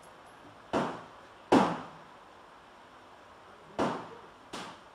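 Four gunshots on a rifle range, each a sharp crack with a short ringing tail. They come in two pairs a little under a second apart, about three seconds between the pairs, and the second shot is the loudest.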